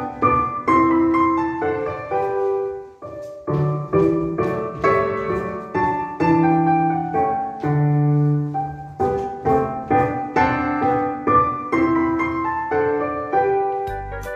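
Instrumental piano music: a gentle melody of struck notes over soft chords, accompanying a children's dance.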